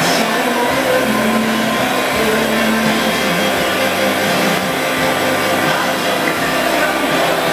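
Birmingham vertical milling machine running under power: a steady motor and gear whine made of several held pitches, with one tone coming in about a second in and fading out a couple of seconds later.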